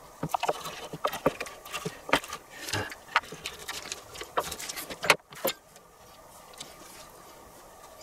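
Scattered small clicks and taps of food preparation on a wooden cutting board: a kitchen knife cutting through puff pastry and the parchment paper under it being handled. The sharpest knock comes about five seconds in, and the tapping stops soon after.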